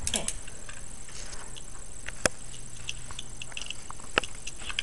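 Cyber Pegasus Beyblade top spinning in a plastic Beystadium, with a light scratchy patter and scattered small clicks as it skids and knocks against the stadium. Sharper clicks come about two seconds in and again about four seconds in.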